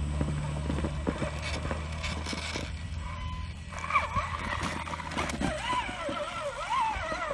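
Traxxas Summit electric RC rock crawler climbing over rocks. Its motor and gearbox whine rising and falling with the throttle, and its tyres and chassis knock and scrabble against the stone, with one sharp knock about four seconds in.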